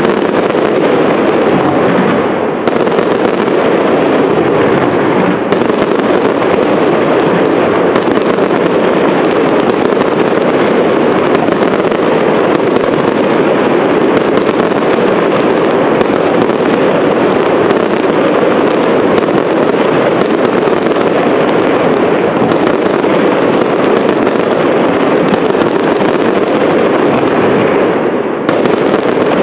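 Professional aerial fireworks display: a dense, unbroken barrage of shell bursts, one report following hard on the next.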